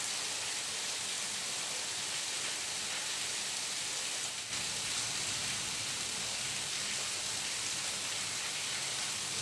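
Steady, even background hiss with no distinct events, dipping briefly about four and a half seconds in.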